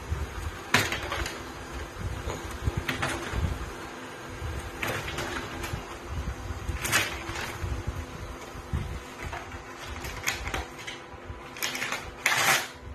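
Paper crinkling and tearing in short bursts as a cat paws at and pulls printed sheets from a laser printer's output tray; the loudest burst comes near the end. A steady mechanical hum and soft low thumps run underneath.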